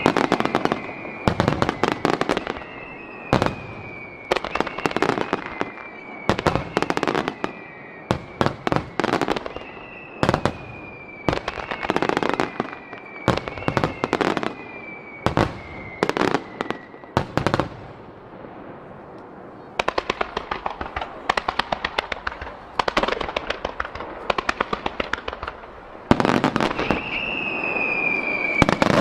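Star mine fireworks barrage: rapid volleys of shell bursts and crackle, with repeated falling whistles over them. A brief thinner spell about two-thirds through, then dense crackling that grows louder near the end.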